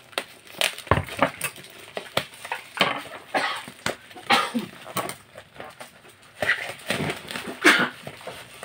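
Plastic parcel wrapping and packing tape being pulled, crinkled and torn open by hand, in irregular rustling and crackling bursts.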